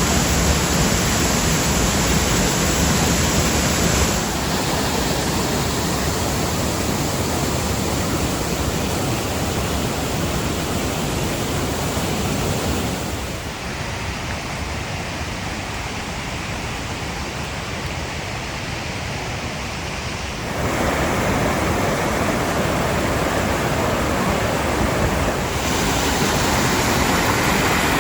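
Steady rushing of a waterfall and fast-flowing creek water. It shifts suddenly in loudness and tone a few times, dropping about a third of the way in and coming back louder near the two-thirds mark.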